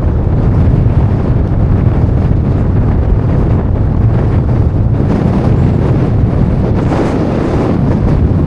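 Wind buffeting the microphone: a loud, continuous low rumble that gusts up and down, a little stronger around the middle and near the end.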